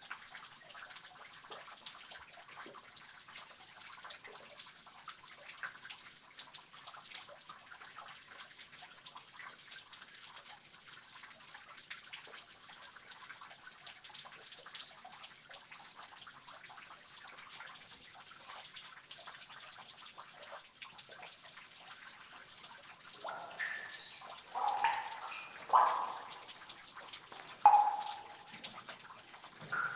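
Water dripping in a cave over a steady trickle of flowing water, many small drips throughout. Four or five louder drops fall between about 23 and 28 seconds in, with one more just before the end.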